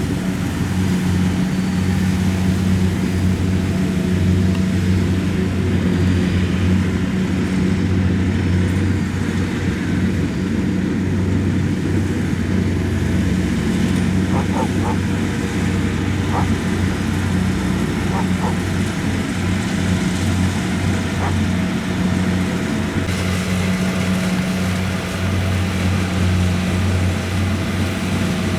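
Kubota DC-70 combine harvester's diesel engine running steadily under load while harvesting rice, a constant low drone.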